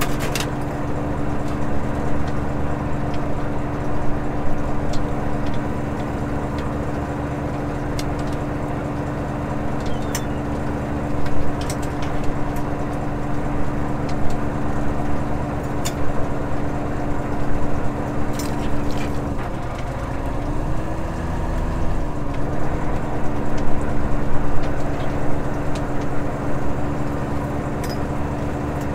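Fishing boat's engine and deck machinery running with a steady low hum, with a few sharp clicks and knocks from gear on deck. About two-thirds of the way in, the hum's pitch dips and bends back up over a couple of seconds.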